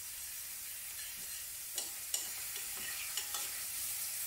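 Shimeji mushrooms sizzling in olive oil in a stainless steel skillet while a metal spoon stirs them, with a few sharp clicks and scrapes of the spoon against the pan in the second half.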